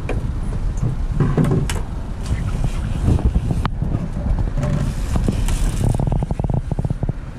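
Twin Suzuki outboard motors running low on a fishing boat, a steady low rumble, with scattered knocks and a quick run of clicks about six seconds in.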